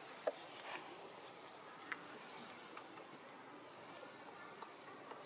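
Insects droning steadily at a high pitch, with short dipping chirps every second or two and a few faint clicks.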